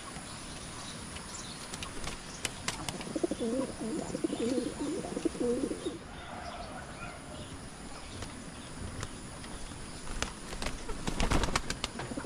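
Domestic pigeons fighting at the loft entrance: a pigeon's rolling coo a few seconds in, then a scuffle of wing slaps and flapping near the end.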